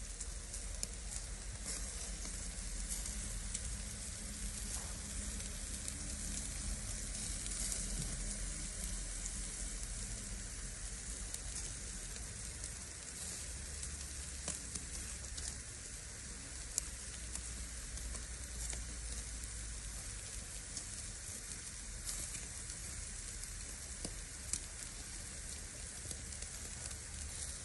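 Steaks, tomatoes and peppers sizzling on a grill: a steady hiss with scattered crackles and an occasional sharp pop.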